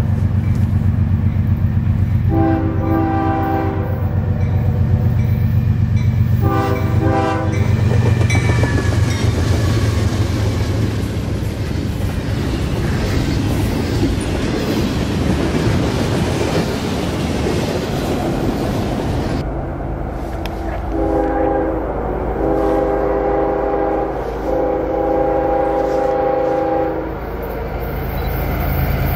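Diesel freight locomotive's multi-note air horn sounding two blasts over the low rumble of its engine, then the noise of a doublestack container train's cars passing close by. A second freight locomotive's horn then sounds three blasts as it approaches.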